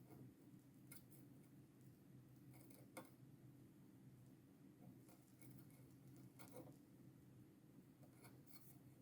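Near silence: room tone with a steady low hum and a few faint, sharp clicks, about one to three seconds apart.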